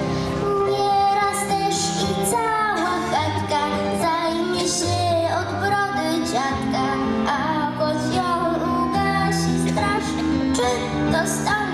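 A young girl singing into a microphone over instrumental backing music, amplified through a stage PA.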